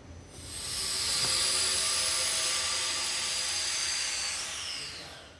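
A high-speed motor whining steadily, then winding down in pitch near the end as it stops.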